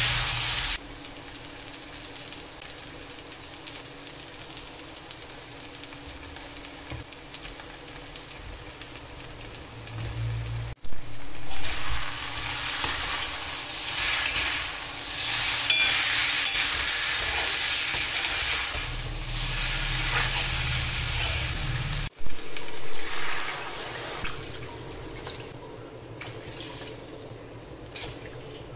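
Fish and potato pieces sizzling as they fry in a kadai, stirred with a steel slotted spoon that scrapes against the pan. The sizzling comes in loud spells, with a lower steady hiss between them.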